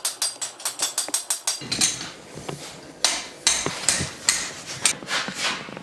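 Hand hammer striking steel while rolling and closing the barrel of a forged horseshoe hinge. It opens with a quick run of light, even taps, about six a second, then from about two seconds in gives heavier, more spaced blows that ring on.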